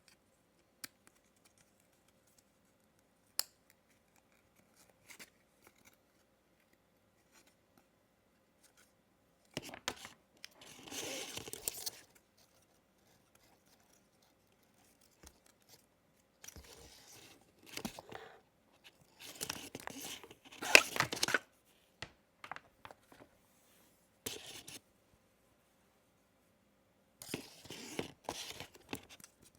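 Packaging being handled during an unboxing: a few small clicks, then from about a third of the way in repeated short bursts of tearing and rustling, as of paper or plastic wrap being torn or pulled away.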